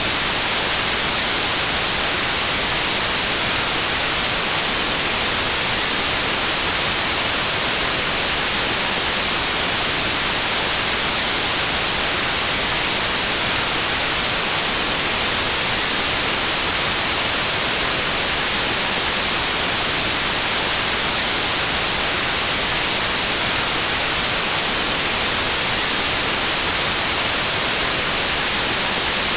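Steady white noise: an even, unchanging hiss, brightest in the high range.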